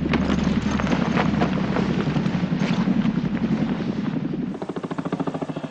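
Helicopter flying, a steady rapid rotor chop over an engine hum; it drops in level about four and a half seconds in.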